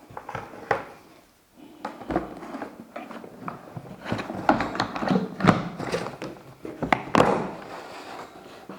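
Parts of a wet-and-dry vacuum cleaner being handled during unboxing: irregular taps and knocks, the loudest about seven seconds in, with the motor not running.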